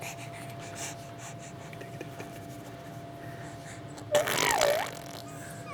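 A baby makes one short vocal noise about four seconds in, its pitch dipping and then rising again. A faint steady hum runs underneath.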